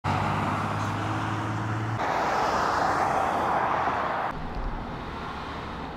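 Road traffic: a car passing on a highway, a steady low engine hum followed by the hiss of tyre and road noise. About four seconds in, the sound drops to quieter outdoor ambience.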